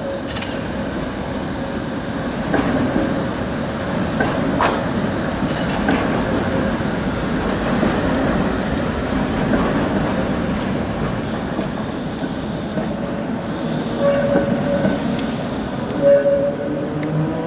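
Articulated electric trams rolling through a track junction, a steady rumble of steel wheels on rail with scattered sharp clicks and clatter over the rail joints and crossings. A few brief whining tones come in near the end.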